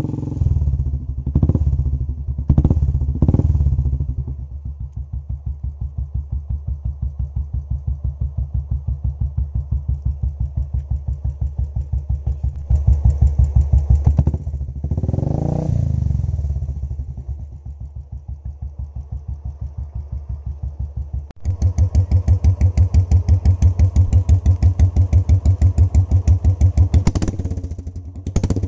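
Royal Enfield Bullet single-cylinder four-stroke engine running through an aftermarket silencer, with an even, steady thump at idle. It is blipped a few times in the first seconds and revved once about halfway through. About three quarters of the way in, the exhaust note abruptly becomes louder and sharper, typical of a change in the silencer setup such as an open silencer versus one with the filter in.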